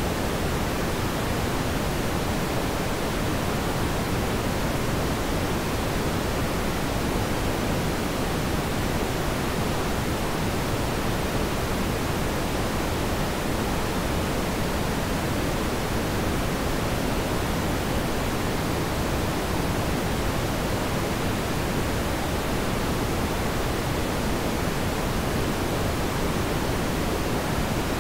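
A steady, unchanging hiss spread evenly from low to high pitches, like pink noise, with no other sound standing out.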